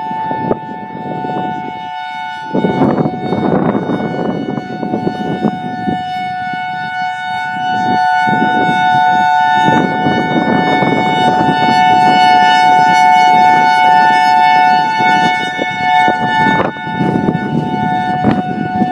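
Federal Signal EOWS-612 electronic siren sounding its steady dual-tone signal, two tones held together, swelling and fading as the rotating speaker array turns. Several of its drivers are blown, which makes it unusually quiet for an outdoor warning siren.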